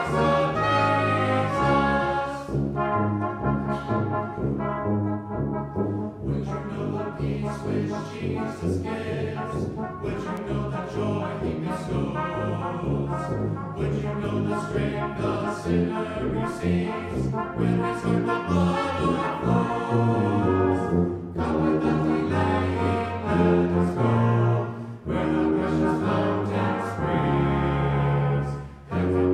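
Brass band of cornets and trombones playing a hymn tune in harmony, with a brief break near the end.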